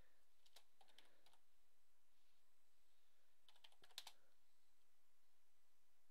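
Faint computer keyboard typing: a short run of keystrokes about half a second to a second and a half in, then another run about three and a half seconds in ending in the sharpest keystroke at about four seconds.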